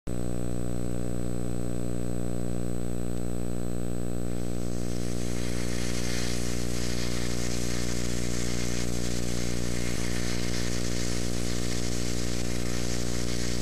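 A loud, steady low hum made of many even overtones, over a hiss that grows stronger about four to five seconds in.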